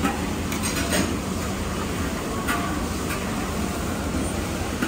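Steady din of a busy restaurant dining room, a low rumble of ventilation and distant hubbub, with a few light clinks of a metal soup ladle against a stainless pan and bowl.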